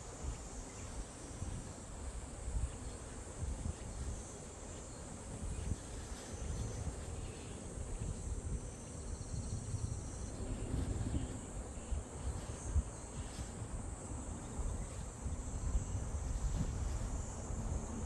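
Wind gusting on the microphone as a low, uneven rumble, with a steady high-pitched chorus of insects such as crickets.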